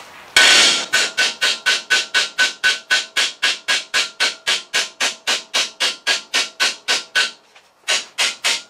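Rapid, even metallic clicking from a car rotisserie's mechanism being worked by hand with a long bar, about four to five clicks a second, each with the same ringing note. It pauses briefly near the end, then starts again.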